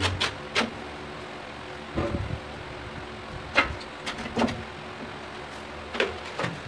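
Scattered sharp knocks and clicks, some with a short ring, from a large ceramic tile being handled and tapped on a worktop, over a faint steady hum.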